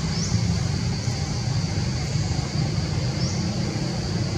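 Steady outdoor background noise: a low rumble with an even high hiss above it. A faint short rising chirp comes just after the start and again about three seconds in.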